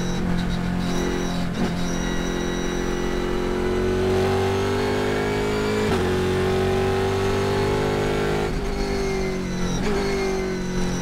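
Pratt & Miller Cadillac CTS-V.R race car's engine at full throttle, heard inside the cockpit. The pitch climbs steadily as the car accelerates, breaking at upshifts about 1.5 s and 6 s in, with two brief dips near the end.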